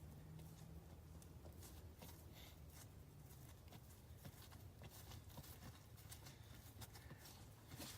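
Near silence: a faint low hum that fades out partway through, with scattered faint small clicks and rustles.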